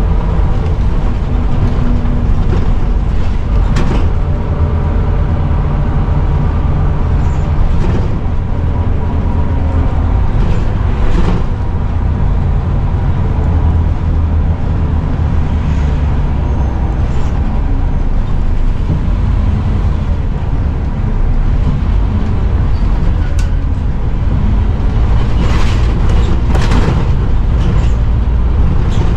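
A Scania Omnicity single-deck bus (CN230UB chassis) heard from inside while driving, its drivetrain running with a loud differential whine over the engine rumble. The whine is the sign of a worn-out ("knackered") differential. A few sharp knocks and rattles come from the bus body along the way.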